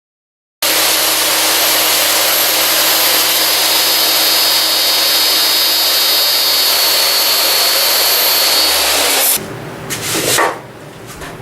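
A woodworking power tool runs steadily with a loud hiss and a high whine, starting abruptly just after the start and cutting off suddenly about nine seconds in. A few short knocks follow near the end.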